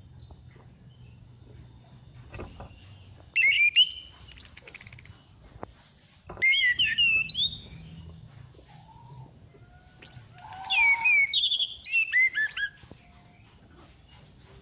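Female orange-headed thrush (anis kembang) calling in three bursts of varied whistled phrases, several of them opening with a high note that slides down, with short pauses between. This is a lure call (pancingan) used to provoke male thrushes into singing.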